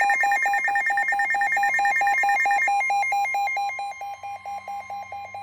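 Electronic emergency-alert attention tone: a steady high tone under a fast, even beeping, about six beeps a second. The highest part of the beeping drops out about halfway through and the tone grows softer. It heads a new warning on an alert broadcast.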